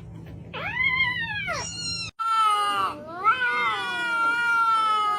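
Cat meowing: one short meow that rises and falls, then an abrupt cut to a long, drawn-out meow that rises and then holds its pitch.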